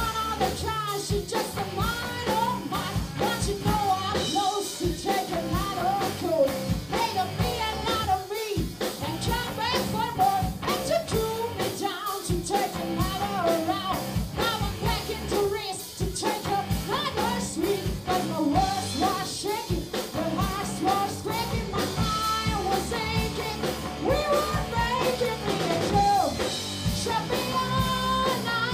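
Live rock band playing: electric guitars, bass guitar and a drum kit keeping a steady beat, with a lead vocal over them.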